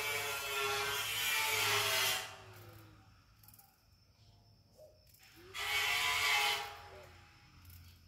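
Electric power tool motor running with a high whine and winding down about two seconds in, then switched on again for about a second, its pitch rising as it spins up and falling as it stops.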